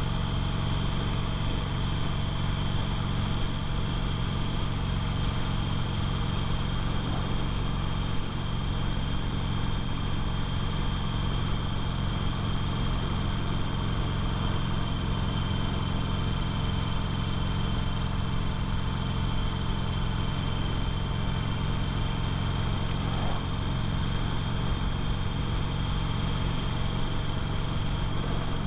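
2008 Harley-Davidson Sportster 883L's air-cooled V-twin running steadily at cruising speed in fifth gear, with wind and road noise over it. The engine note stays even throughout.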